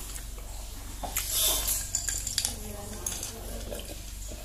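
Clinks and scrapes of tableware: fingers working food on a ceramic plate and a drinking glass being picked up, with a cluster of sharp clicks between about one and two and a half seconds in.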